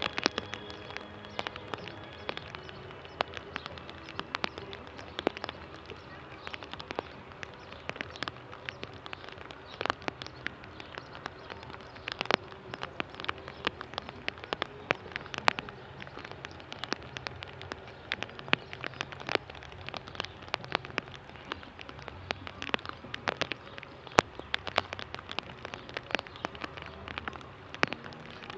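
Raindrops falling, with many irregular sharp taps and patters over a steady hiss of rain.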